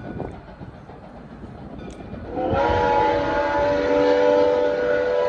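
Soo Line 1003 steam locomotive's chime whistle starting about two seconds in, sliding up slightly in pitch as it opens, then held as one long loud chord of several tones.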